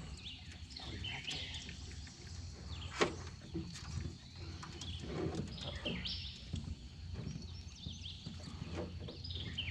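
Songbirds chirping and calling repeatedly over a steady low background hum, with a single sharp knock about three seconds in.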